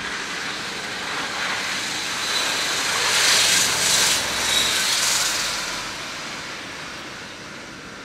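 Pickup truck with a snowplow blade driving past on a snowy road: a hiss of tyres and engine that swells, is loudest between about three and five seconds in, then fades away.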